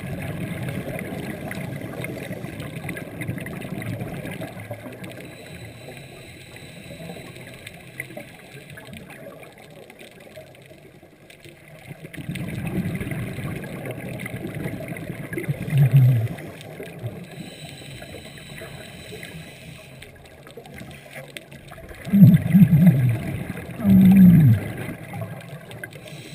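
Scuba regulator breathing heard underwater: three long bubbling exhalations about ten seconds apart, the last ones the loudest.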